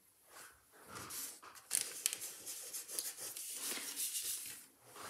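Yellow printing ink being rubbed by hand into the surface of a mount-board collagraph plate: rapid, irregular scratchy rubbing strokes, busiest through the middle.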